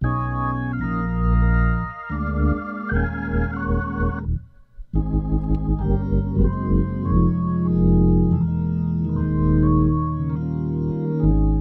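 Hammond-style drawbar organ playing a gospel hymn in held chords over a low bass line. It breaks off briefly about four seconds in, then comes back in with the chords.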